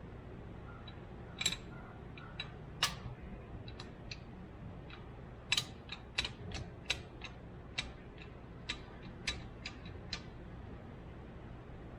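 Irregular sharp clicks and taps of hand tools and small parts being worked on a truck's steering-column shift linkage, about twenty in all and unevenly spaced, over a low steady hum.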